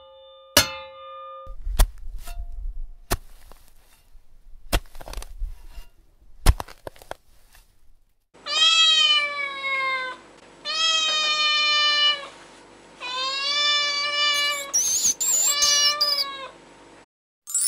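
A cat meowing four times in the second half, each meow long and drawn out, bending in pitch. Before the meows come scattered sharp clicks and knocks.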